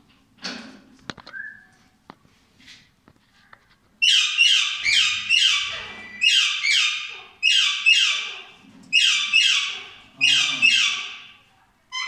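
Indian ringneck parakeet nestlings giving harsh, raspy begging calls as the hen feeds them. The calls start about four seconds in and come in quick runs of two to four, about two to three a second.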